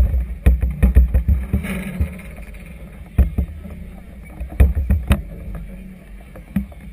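Wind and choppy harbour water against a moored floating clubhouse, picked up by a GoPro mounted on it: an irregular run of low thumps and rumbles with sharp knocks, the loudest about three seconds in and around five seconds in.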